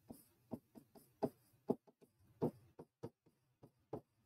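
Faint, irregular taps and short scratches of a writing tool on a board as a word is handwritten, about a dozen strokes.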